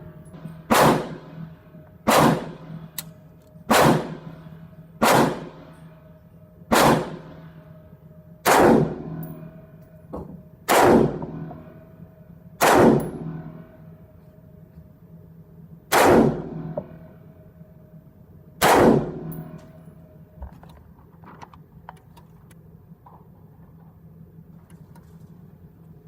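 AR-15-style semi-automatic rifle, a Black Rain Ordnance Fallout 15 in 5.56, firing ten single shots at an uneven pace of one every one to three seconds, each with a short ringing tail; the firing stops about two-thirds of the way through.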